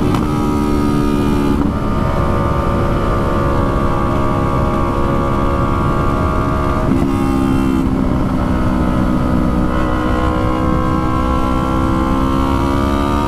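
Yamaha R3's parallel-twin engine running under way at steady revs. The pitch drops suddenly about two seconds in and again about seven seconds in, as at a gear change, then climbs slowly as the bike pulls.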